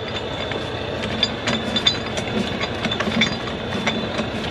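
Load-securing chain and binder being handled: irregular metal clicks and clinks, with a steady low hum underneath.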